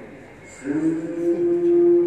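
Traditional Vietnamese music for a water puppet show: about half a second in, a note slides up and is held as one long, steady tone.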